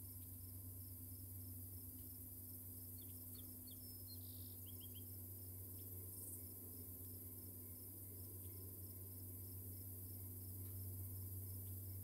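Quiet outdoor chorus of crickets: a high, even insect buzz with a small chirp pulsing a few times a second. A few brief bird chirps come near the middle, and a faint steady low hum runs underneath.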